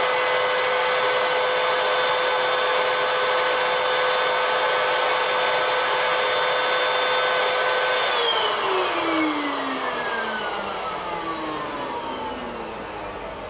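Vacuum cleaner running with a steady high whine. About eight seconds in it is switched off, and its motor winds down, the whine falling steadily in pitch and fading.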